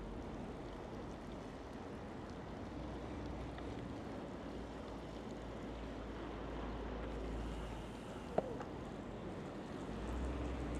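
City street ambience: a steady hum of road traffic, with a low rumble of wind on the microphone that comes and goes. A single sharp click about eight seconds in.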